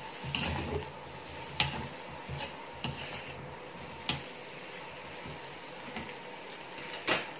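Metal spatula stirring fried potato cubes in a kadai, scraping and knocking against the pan with a few sharp clicks, the loudest near the end. The potatoes sizzle quietly in the oil underneath.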